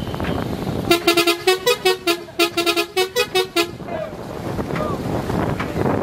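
A horn sounded in a quick run of about a dozen short blasts, stepping between two pitches, starting about a second in and stopping near the middle. Around it, wind on the microphone and the splash of the paddles.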